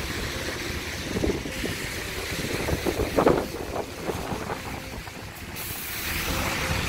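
Wind rumbling on a phone microphone over the hiss of traffic on a rain-wet road, with the hiss swelling near the end.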